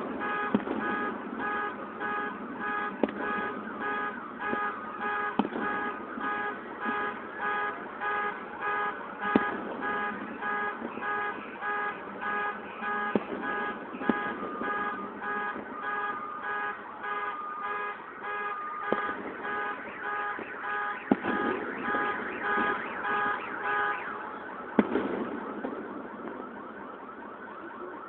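A car alarm beeping in a steady repeating pattern, cutting off about four seconds before the end. A few sharp, distant firework bangs fall here and there over it.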